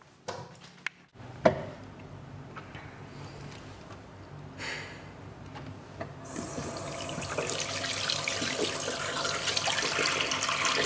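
A few sharp knocks in the first second and a half, then water starts running about six seconds in and keeps pouring.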